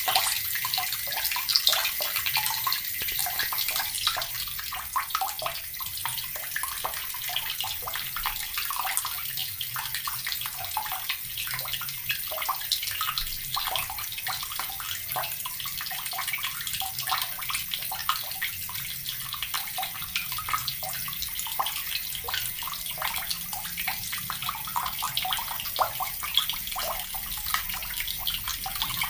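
Water from a tap pouring steadily into a bucket, a continuous splashing and burbling stream.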